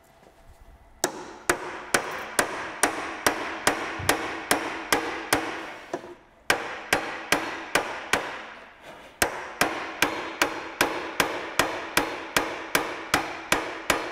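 Steady hammer blows, about two a second, on the seized front shock absorber top mount of a Porsche Boxster S, each with a short metallic ring, pausing briefly about halfway. The strike is aimed at knocking the heated top mount apart where corrosion has seized it to the shock absorber shaft.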